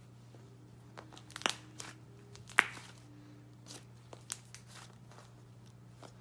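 Hands squeezing and kneading thick pink slime, giving a handful of sharp, sticky pops and crackles as air trapped in the slime bursts. The loudest pop comes about two and a half seconds in, over a steady low hum.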